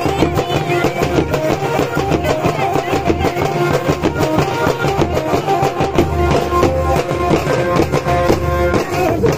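Live folk drumming: barrel drums and large stick-beaten frame drums play a fast, dense rhythm, with a melody line held over it.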